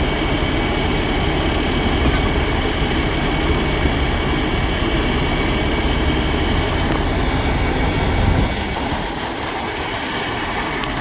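Heavy diesel tow truck's engine running with a steady low rumble and a faint steady whine, the rumble dropping off a little past eight seconds in.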